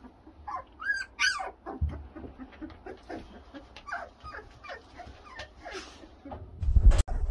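Black Labrador retriever puppies whimpering and squealing, with a few sharp high squeals about a second in. A loud low thump comes near the end.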